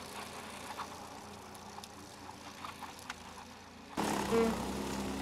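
Argo Avenger 800's twin-cylinder Kohler engine running as the eight-wheeled tracked ATV climbs a steep hill, heard from a distance with a few faint clicks. About four seconds in it cuts abruptly to a louder, nearer engine running steadily.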